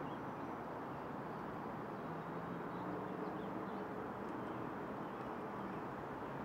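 Steady outdoor background noise: a low hum of distant traffic, with a few faint high chirps.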